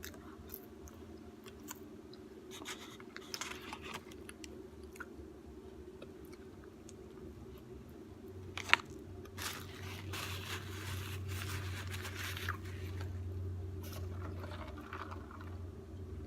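Person eating a McDonald's meal: small chewing, crunching and scraping noises over a steady low hum, with one sharp click about nine seconds in and a stretch of rustling just after it.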